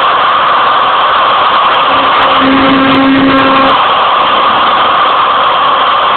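Router spindle of a homemade CNC mill running steadily while a 90-degree V-cutter carves. A lower steady hum joins for about a second and a half around the middle.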